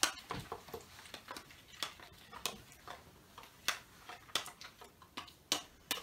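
Spoon stirring thickening slime quickly in a plastic bowl, making irregular clicks and taps against the bowl, about two or three a second.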